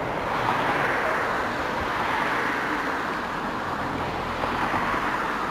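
Steady rushing hiss of road traffic, with no single vehicle standing out.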